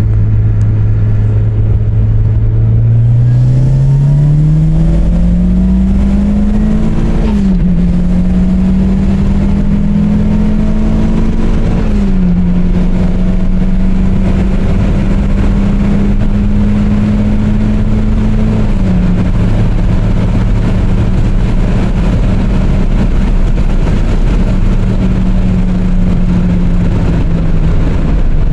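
Turbocharged Mazda MX-5's four-cylinder engine pulling hard through the gears, heard from inside the cabin. The engine note climbs and then drops sharply at three upshifts, about 7, 12 and 19 seconds in. It climbs more slowly in each higher gear and eases slightly near the end.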